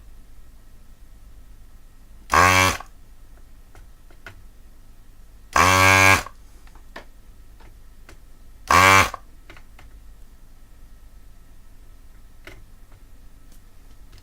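A desoldering tool's vacuum pump buzzing in three short bursts, the middle one longest, as solder is sucked off circuit-board pads. Faint clicks sound between the bursts over a low steady hum.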